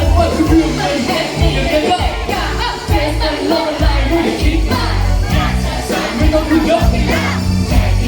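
Thai pop song with a singer over a heavy bass beat, played loud.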